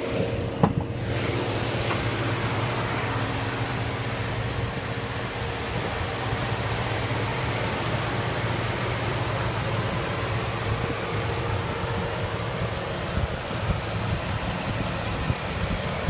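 Dodge Hemi 5.7-litre V8 idling steadily, heard with the hood open. A sharp click about half a second in, as the hood latch is released.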